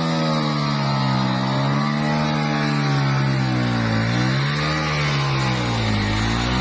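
A vehicle engine pulling hard up a steep climb, its revs rising and falling in slow waves and dipping twice, about four and six seconds in.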